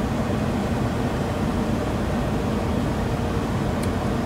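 Steady cockpit noise of an Embraer E190 jet airliner on final approach, with a steady low hum under it. There is a faint tick near the end.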